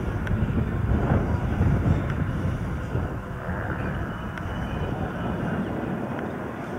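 Radio-controlled model airplane flying overhead, its motor sound swelling about a second in and then easing off, over a low rumble of wind on the microphone.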